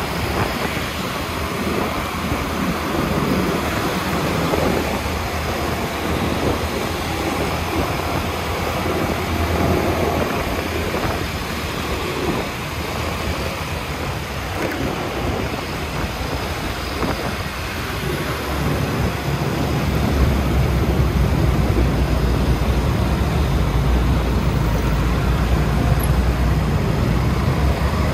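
Riding noise on a motor scooter in city traffic: wind on the microphone over engine and road noise. A deeper rumble grows louder in the last third.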